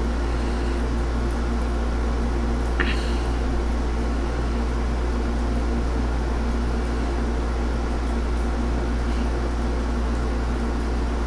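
Steady low hum with a constant hiss, unchanging throughout, with one brief click about three seconds in.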